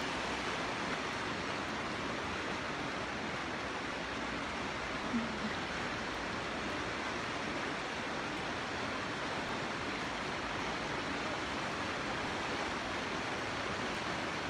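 Floodwater rushing across a flooded road: a steady, even rushing of fast-flowing water.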